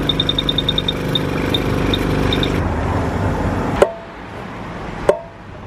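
Coin-op forecourt tyre inflator's keypad beeping in short high pips as its button is pressed to set the pressure, a quick run of beeps and then a few spaced ones, over a steady machine hum. After about two and a half seconds this gives way to a quieter hiss with two sharp clicks.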